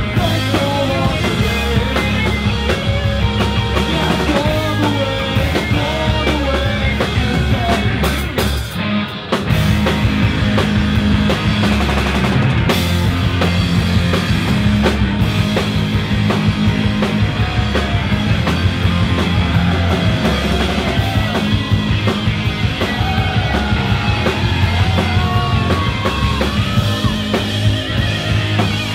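Punk rock band playing live: distorted electric guitars, electric bass and a drum kit. The music drops out briefly about nine seconds in, then the full band comes back in.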